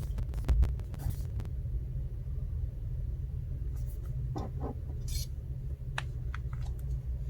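Scattered small clicks and scrapes over a steady low hum: a cluster in the first second and a half, then a few separate taps later on.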